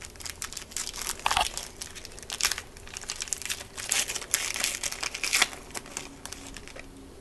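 Crinkling and crackling of a trading-card pack wrapper while a pack of football cards is handled and opened, in a quick irregular run that is busiest midway and thins out toward the end.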